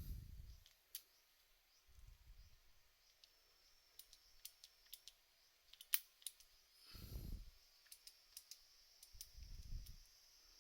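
Faint scattered sharp clicks, the loudest about six seconds in, with four soft low thumps of handling between them.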